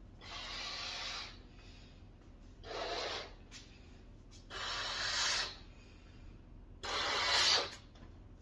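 Latex balloon being blown up by mouth: four long breaths pushed into it, about two seconds apart, with quieter pauses between for drawing breath.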